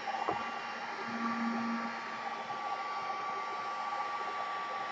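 Handheld electric heat gun blowing steadily, a rush of hot air with a faint steady whine from its fan motor. A small knock about a third of a second in.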